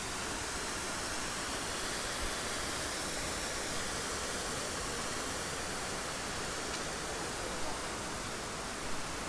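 Steady rush of flowing water, an even hiss that holds without a break.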